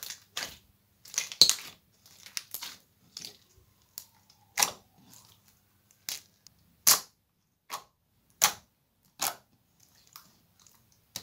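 Clear glitter slime packed with small beads being pressed and kneaded by hand, giving a string of sharp pops and crackles at irregular intervals, every second or so, with quiet between them.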